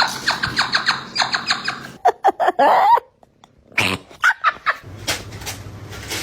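A pet animal's calls: a quick run of short sounds, then a louder wavering cry that cuts off abruptly about three seconds in, followed by more short calls.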